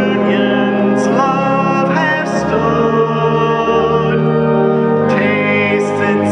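Church gathering hymn sung by voices with instrumental accompaniment, in long held notes that change about once a second.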